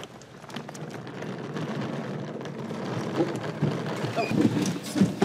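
A vehicle passing on the street, its noise building steadily as it comes closer, with a few short squeaks near the end.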